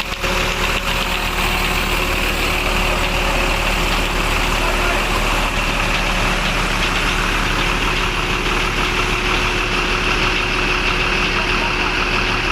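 Bus's rear-mounted engine running steadily with a continuous high-pitched whine from the fan belt, a second-hand belt fitted after the previous one broke; the driver says this noise is normal for a fan belt.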